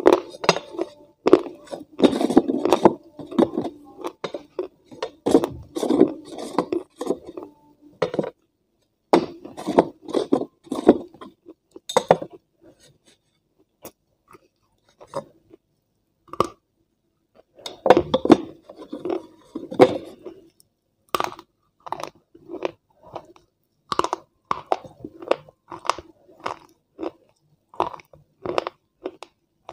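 Close-miked chewing and crunching of food, in quick irregular bites, with fingers now and then scraping and clinking on a steel plate. It goes mostly quiet for a few seconds just before the middle, then the chewing picks up again.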